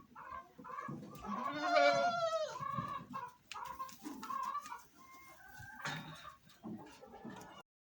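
Farmyard chickens clucking in short repeated calls, with one longer, louder animal call about two seconds in.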